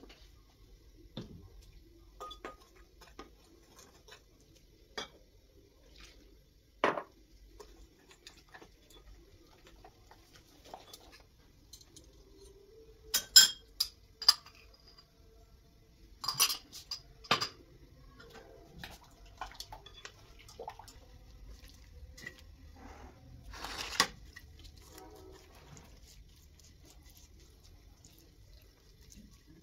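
Dishes and metal cooking utensils clinking and knocking during kitchen work, in scattered separate strikes. The loudest clusters come about 13, 16 to 17, and 24 seconds in.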